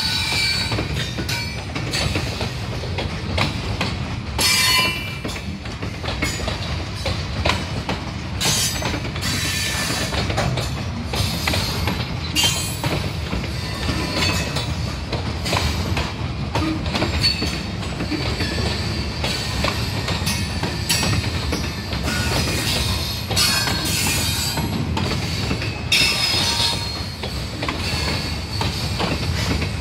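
CSX freight train of covered hopper cars rolling past: steady sound of steel wheels on rail, with repeated clacks and high squeals that come and go, metal on metal as the wheels take the curve.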